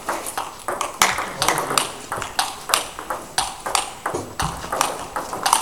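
Table tennis balls clicking off bats and table in a fast back-and-forth rally, about three sharp hits a second.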